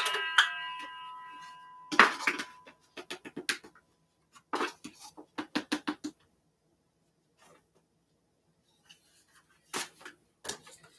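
A single bright ding at the start that rings on for about two seconds, followed by scattered knocks and clicks of a plastic flour container and measuring cup being handled at the counter.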